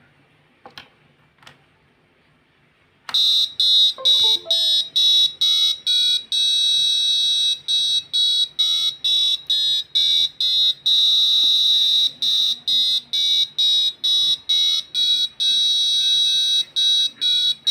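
Electronic alarm-style ringtone: shrill beeping pulses, about three a second with a few longer held stretches, over a faint stepping melody, starting about three seconds in after two faint clicks.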